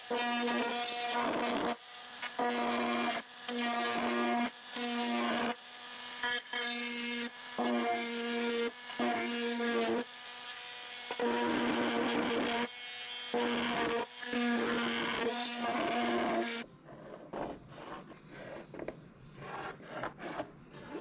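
Handheld rotary tool with a Rout-A-Bit router bit, set to about 15,000 RPM, whining steadily as it routes a groove into the balsa wing sheeting around a hatch opening; the cutting noise comes and goes with several short breaks. The tool stops near the end, leaving faint scratchy sounds.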